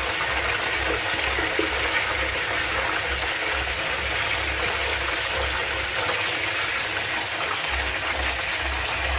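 Baby pigeons frying in hot oil in a pan, a steady sizzling hiss, while they are turned over with tongs.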